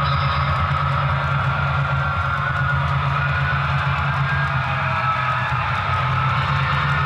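Model diesel locomotive sound from the decoders of an HO-scale EMD F-7 A-B-A set: steady prime-mover drone with a buzzy, distorted edge. The distortion comes from the lead and trailing A units' Rolling Thunder transmitters sharing one channel and interfering with each other.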